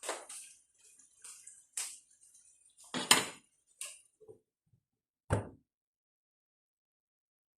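Several knocks and clatters of a cooking utensil against a pot, loudest about three seconds in, with the sound stopping abruptly after about five and a half seconds.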